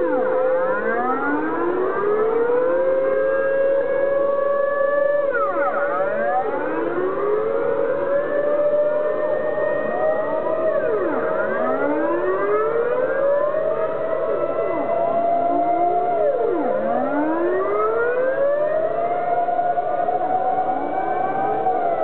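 Several civil-defence air-raid sirens sounding together in their monthly noon test. Their overlapping tones rise and fall every five or six seconds, while one loud, steadier tone slowly climbs in pitch.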